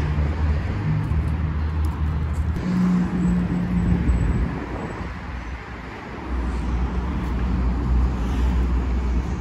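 City street traffic: the low engine rumble of passing road vehicles. It eases off a little past halfway, then another vehicle's low rumble comes up.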